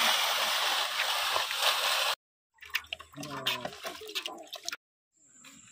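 A steady rush of water for about two seconds that cuts off abruptly. After a short gap come faint voices and a few light knocks.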